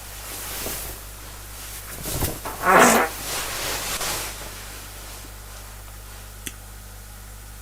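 A person farting once, a short fluttering burst about three seconds in, over a steady background hum and hiss.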